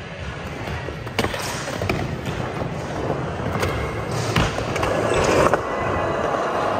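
Skateboard wheels rolling on a smooth concrete floor, with several sharp clacks of the board along the way; the rolling grows louder in the second half.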